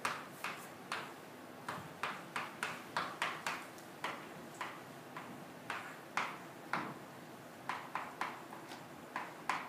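Chalk writing on a chalkboard: a string of irregular sharp taps and short scrapes as the chalk strikes and drags across the board to form letters.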